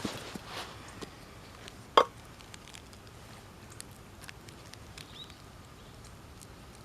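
Wood campfire crackling: scattered small ticks and one sharp, loud pop about two seconds in.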